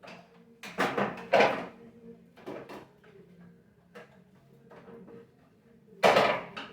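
Knocks and clattering of a vacuum cleaner's parts being handled while it is taken apart, loudest about a second in and again near the end.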